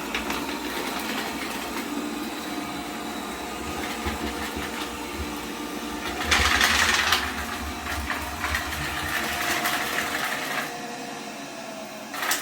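Deenkee DK650 robot vacuum running on a hard bathroom floor: a steady motor whine with the brushes sweeping, louder and rougher for about a second around six seconds in, then quieter near the end.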